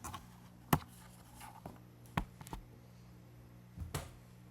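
A few short, sharp taps and clicks of objects being handled, spread over a few seconds, above a faint steady low hum.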